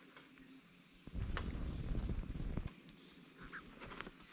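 Insects trilling steadily on one high note, with a soft low rumble from about one second in to nearly three seconds and a few faint clicks.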